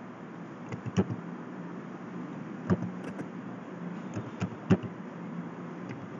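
Computer keyboard keys clicking as a number is typed in, a few separate keystrokes at irregular intervals with a quick group of three near the end, over a steady low hum.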